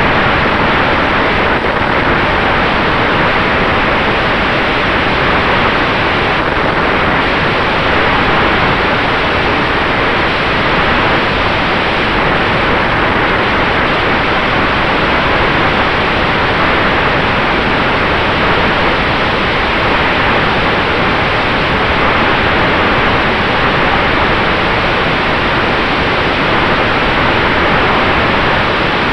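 Steady loud rush of airflow over an externally mounted camera on an electric airplane in cruising flight, with a faint steady tone underneath from the electric motor and propeller.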